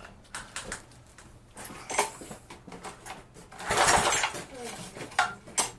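A pressure washer's small gasoline engine being pulled over by its recoil starter cord, with scattered clicks and rattles and one longer noisy pull about four seconds in. The engine turns freely, not seized after years of sitting.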